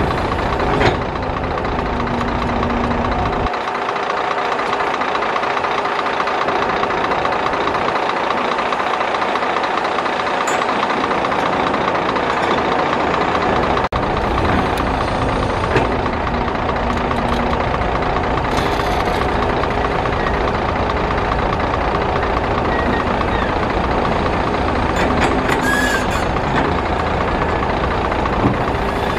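Heavy diesel engines of a Volvo crawler excavator and a Scania P380 dump truck running steadily while the excavator loads dirt into the truck, with a few short knocks scattered through.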